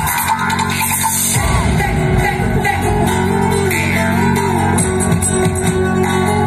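Loud dance music with a singing voice, played over large outdoor loudspeakers.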